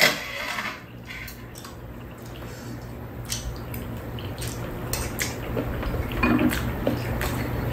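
Metal spoons and chopsticks clinking and scraping against ceramic soup bowls as two people eat soup, with soft sipping sounds. The clinks are scattered and irregular, over a faint steady low hum.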